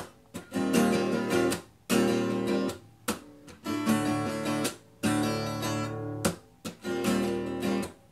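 Acoustic guitar strumming chords in short bursts. Each burst is cut off sharply, leaving brief gaps between the phrases.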